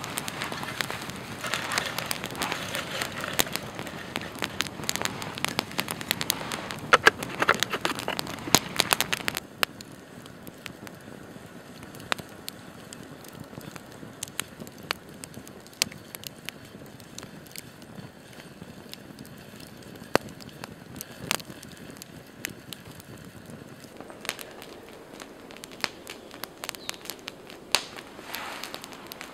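Wood campfire crackling with frequent sharp pops, dense and close for the first third. After that it settles to scattered single pops.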